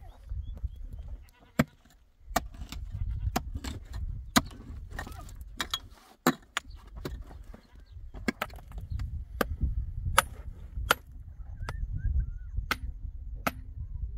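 Irregular sharp strikes of a hand tool chopping at stone and hard earth, about one or two a second, over a low rumble.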